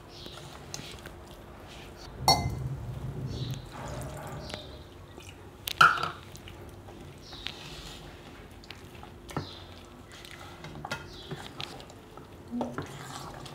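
Metal spoon stirring thick semolina batter in a stainless-steel bowl: soft wet squishing and scraping, with a few sharper clinks of the spoon against the bowl's side.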